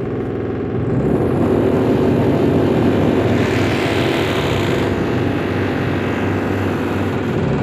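Renovation work: a power tool or machine running steadily with a loud, buzzing drone, growing harsher in the middle.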